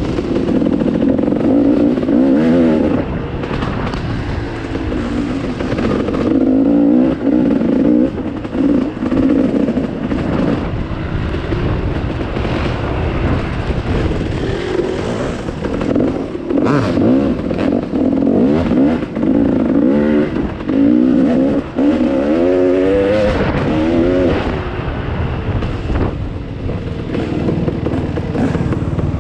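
KTM 300 XC two-stroke single-cylinder dirt bike engine being ridden on a rough trail, its pitch rising and falling every second or two as the throttle is opened and closed.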